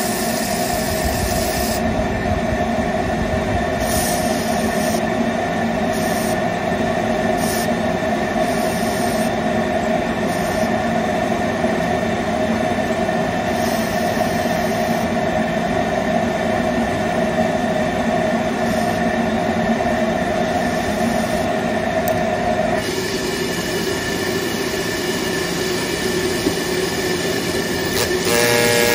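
Steam gun of a stain-removal spotting machine blowing steam onto silk in a steady hiss with a held tone. The tone drops out about 23 seconds in, and a brief pulsing tone comes near the end.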